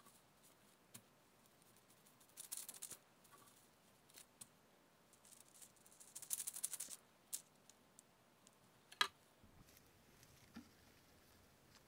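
Serrated knife sawing through soft sponge cake in two spells of quick, soft rasping strokes, with a few light ticks, then one sharp click about nine seconds in.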